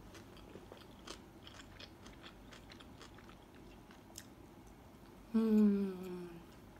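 Soft, close-up chewing with small wet mouth clicks as a person eats a bite of a ham and cucumber sandwich on soft milk bread. About five seconds in comes a loud closed-mouth "mmm" hum, falling in pitch over about a second.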